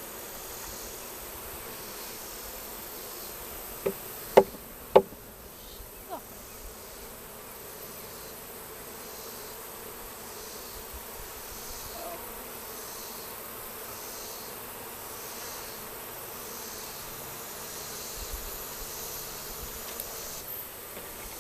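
Honey bee swarm buzzing steadily. Three sharp knocks come about four to five seconds in, then a fainter one.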